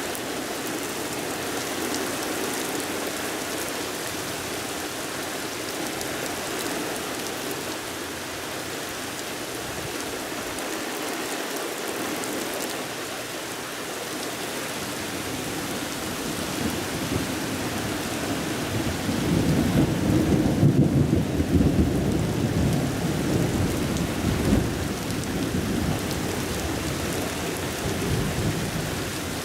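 Steady rain falling, with a long roll of thunder that builds past the halfway mark, is loudest a few seconds later, then rumbles away.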